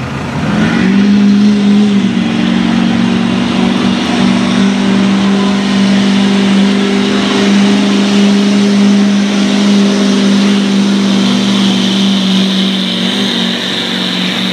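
Ford Super Duty pickup's diesel V8 revving up in the first second, then held at high, steady revs under full load as it drags a weight-transfer pulling sled. A hiss grows louder over the last few seconds.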